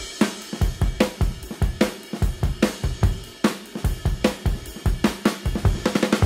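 Background music: a steady drum-kit beat with kick drum, snare and cymbals.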